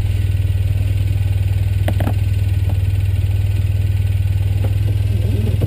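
Engine of a stationary vehicle idling steadily, a constant low hum with an even pulse, heard close up from the hood.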